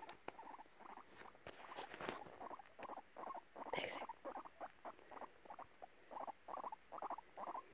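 Guinea pig whimpering: a steady run of short, soft squeaks, about three or four a second. This is the agitated whimpering this guinea pig keeps up whatever is done for it.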